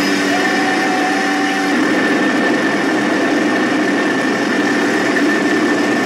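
Little Bird helicopter's turbine engine and rotors running steadily, with a constant high whine over an even roar. It is heard from close by aboard the aircraft.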